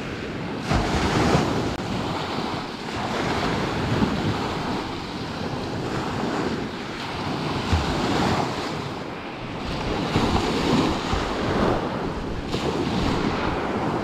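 Wind-driven lake waves washing onto the shore, rising and falling in surges, with wind buffeting the microphone.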